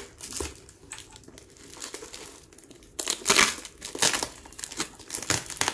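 Brown plastic packing tape being peeled and ripped off a taped-up cardboard courier package, crinkling and tearing. Faint for the first few seconds, then loud, dense crinkling and ripping from about halfway.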